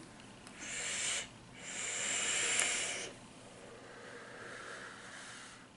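Vaping from a mod with a rebuildable dripping atomizer: hissing draws of air through the atomizer, a short one then a longer, louder one, followed by a softer exhale of the vapour cloud lasting about two seconds.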